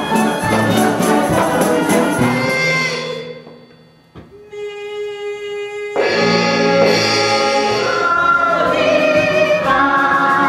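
Stage musical numbers cut together: ensemble singing with instrumental accompaniment that fades out about three seconds in. A single held note follows, then full chorus and accompaniment come back in suddenly about six seconds in.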